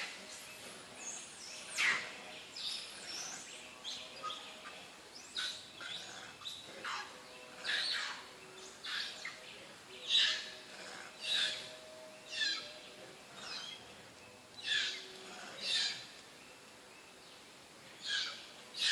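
Short, high-pitched chirping animal calls repeating roughly once a second, some with quick glides in pitch.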